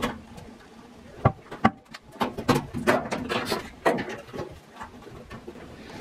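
Sharp plastic and metal knocks, then irregular scraping and rattling, as a washing machine tub suspension rod is worked loose and pulled out of its corner bracket.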